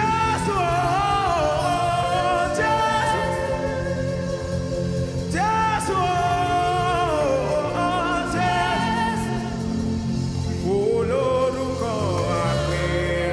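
Live gospel worship music: a lead singer sings long sliding vocal runs over sustained keyboard chords, bass notes and drums.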